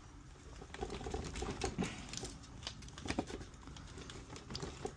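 Quick, irregular small plastic clicks and scratches of a stubborn wire connector being wiggled and tugged to work it loose from a Saeco espresso machine's control board.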